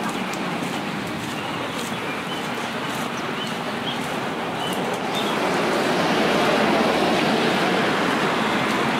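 Outdoor street traffic noise, a steady rushing that grows louder about halfway through as a vehicle comes closer, with a few faint short high chirps early on.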